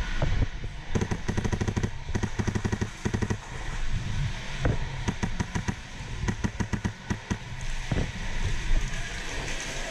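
Airsoft guns firing several rapid full-auto bursts of sharp clicks.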